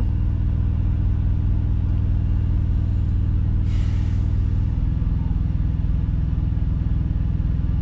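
Kenworth semi truck's diesel engine idling steadily, heard from inside the cab, with a short hiss about four seconds in and a slight change in the engine's hum just after.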